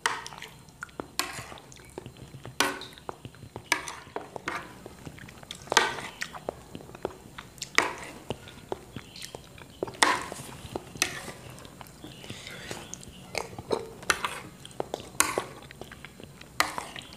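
Close-up eating sounds: soft, wet chewing of chocolate pudding with vanilla custard sauce, with sharp clicks about once or twice a second from a metal spoon tapping and scraping on the plate.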